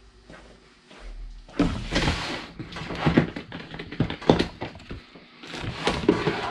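Plastic storage tote set down on a table and its snap-on lid unclipped and pulled off: a run of plastic knocks and clicks with rustling, starting about a second and a half in.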